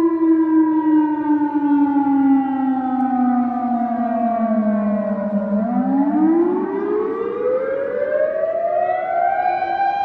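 Chinese civil defense warning siren. Its pitch slides slowly down for about five seconds, then climbs steadily and settles into a steady high tone near the end.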